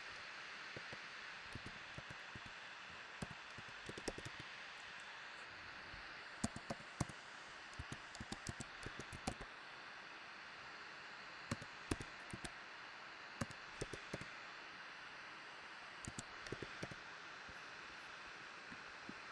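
Keys tapped on a computer keyboard in short quick runs, typing words, over a steady low hiss.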